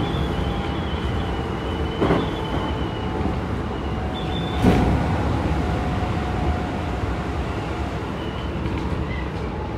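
Keikyu 1000 series stainless electric train running at speed, heard inside the car: a steady rumble of wheels on rail with a faint high whine from its Toyo IGBT-VVVF traction drive. Two sharp knocks come about two seconds in and again just before five seconds.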